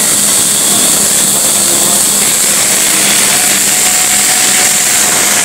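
Electric arc welding: the arc gives a loud, steady crackling hiss, with a faint steady hum underneath.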